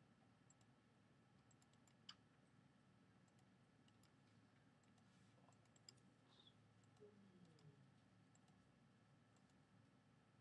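Near silence: faint room tone with a few faint clicks.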